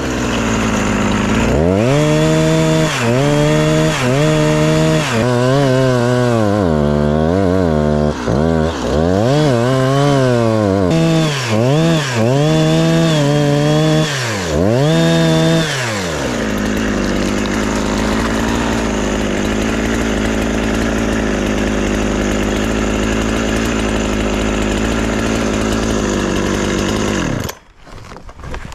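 Chainsaw engine revved up and down over and over, dropping back to idle between blips, then running steadily for about ten seconds before cutting off suddenly near the end.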